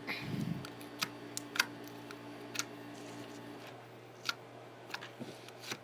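Slime being stretched and squeezed by hand, giving scattered sharp clicks and small pops, about seven of them, over a faint steady hum that stops a little past halfway.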